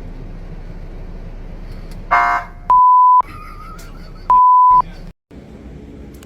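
A short air horn blast about two seconds in, followed by two loud half-second censor bleeps, single steady beeps covering a reaction, over a steady background rumble.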